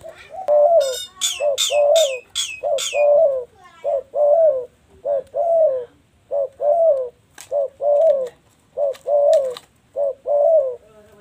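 Spotted dove cooing over and over in short-then-long pairs of low notes, about one pair a second.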